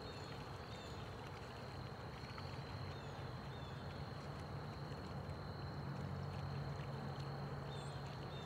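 Outdoor ambience: a steady high-pitched insect drone with a few short falling bird chirps, over a low rumble that swells slightly partway through.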